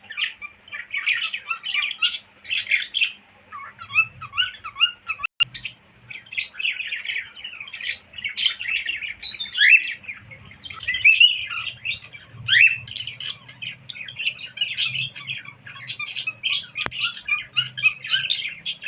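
Cockatiel chattering and whistling: a continuous run of quick chirps with a few sharp rising whistles, over a faint steady low hum.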